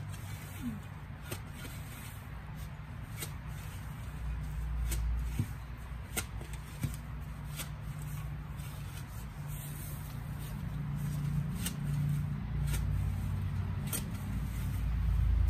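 Rustling handling noise from clearing overgrown grass and soil in a garden bed by hand, with a few irregular sharp clicks and snaps and a low rumble that swells near the end.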